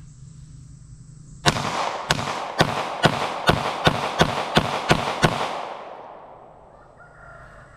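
Glock 19 Gen 5 9mm pistol fired ten times in quick succession, about two to three shots a second, starting about a second and a half in. Each shot echoes, and the echo dies away over a second or so after the last shot.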